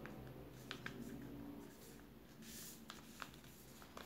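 Faint handling of a sheet of paper being folded and creased by hand: soft rustling with a few light clicks, and a brief sliding swish of paper about two and a half seconds in.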